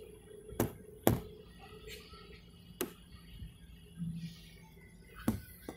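Faint steady hum inside a jet airliner's cabin as it taxis, broken by four sharp knocks at uneven intervals.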